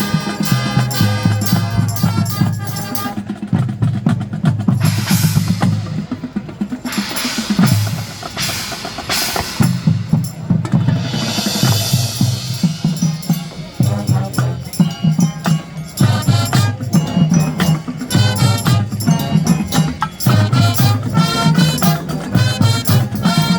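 High school marching band playing a pop arrangement, with the drumline's snare and bass drums driving the beat and long cymbal washes twice along the way.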